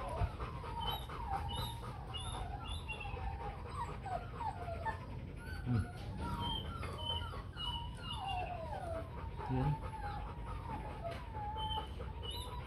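Rottweiler puppies whimpering and whining: a steady string of short, high cries that fall in pitch.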